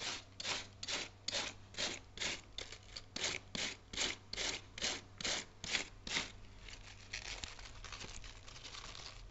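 Cabbage being shaved into very thin shreds with a hand-held metal slicer: a crisp rasping stroke repeated about two to three times a second. About six seconds in, the strokes turn fainter and less even.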